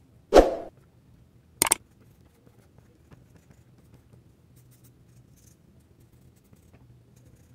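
A single dull knock about half a second in, then a quick sharp double click a little over a second later. After that, only faint scratching of a pencil making short strokes on paper.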